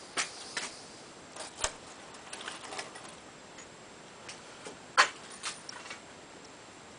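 A few scattered light clicks and knocks, the sharpest about five seconds in: small objects and the handheld camera being handled.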